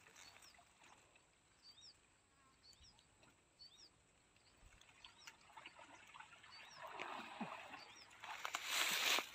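Water sloshing and splashing, building up in the second half and loudest just before the end, over faint high bird chirps that repeat throughout.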